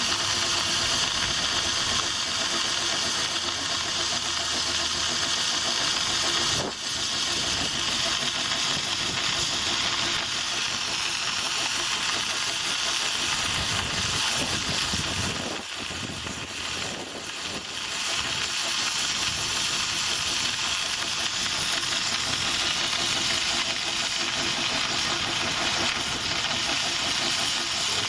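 A locomotive on the move, heard close to its cab: a steady hiss over a running rumble, dipping briefly about a quarter of the way in and easing for a couple of seconds around the middle.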